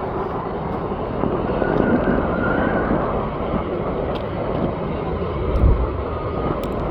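Steady jet engine noise from an airliner at the airport, with a brief low thump about five and a half seconds in.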